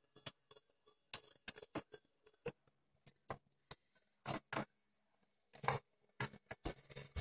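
Stepper motor of a homemade 3D printer driving the X-axis gantry carriage in short, irregular test moves: faint ticks and brief buzzing clicks, some carrying a low hum, the strongest bursts about four seconds in and near six seconds.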